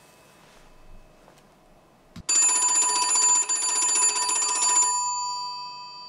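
Lava-branded novelty telephone ringing: a single rapid bell trill lasting about two and a half seconds, starting a couple of seconds in. The bell then rings on and fades away.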